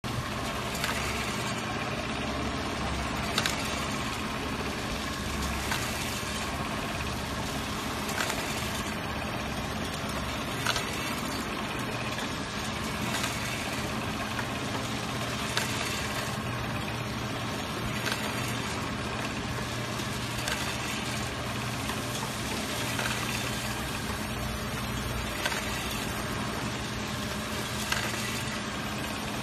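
Electronic capsule counting machine running steadily: a low motor hum under the dense rattle of hard capsules moving around its rotating stainless-steel bowl. A short sharp click comes about every two and a half seconds.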